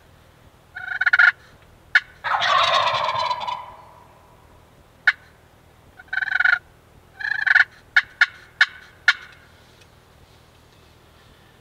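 Wild turkey gobblers gobbling loudly and close by, about four times, one long gobble trailing off. Several short sharp turkey notes sound between the gobbles.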